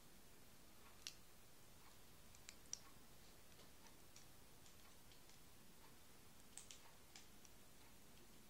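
Near silence with a few faint, scattered small clicks: a loom-band hook and pens being handled while rubber bands are looped over them.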